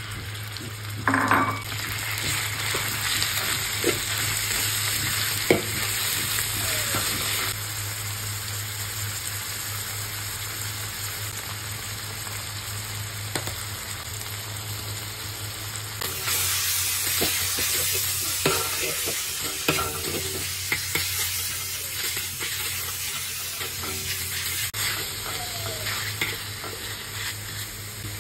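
Minced pork sizzling in hot oil in a wok, with a louder burst of sizzle about a second in as the meat goes into the pan. A metal spatula scrapes and taps against the wok as the pork is stirred and broken up.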